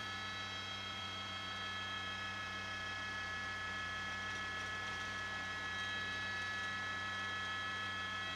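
Steady drone of a news helicopter heard from inside the cabin, a hum with several steady tones over a faint hiss and no change in level.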